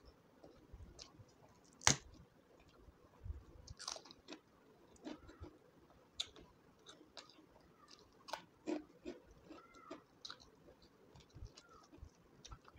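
Close-up chewing and biting of handfuls of rice mixed with dal and crispy aloo bhujiya: wet mouth clicks and a light crunch, with one sharp snap about two seconds in.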